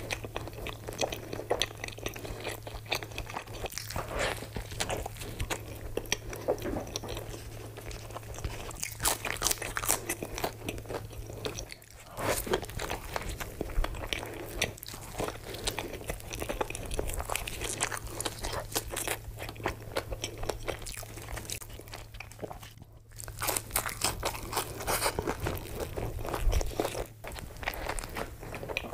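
Close-miked eating: big bites into a fast-food burger and chewing with a full mouth, with crunching and wet mouth sounds in an irregular stream. There are brief pauses about twelve and twenty-three seconds in.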